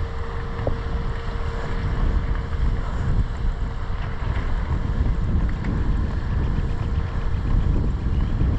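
Wind buffeting the microphone of a camera carried on an outdoor run, giving a steady low rumble that flutters in level. A faint steady hum runs underneath and fades out about six seconds in.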